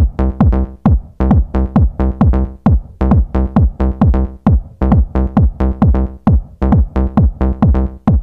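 Electronic dance music with a steady, pounding kick-drum beat over sustained synthesizer chords.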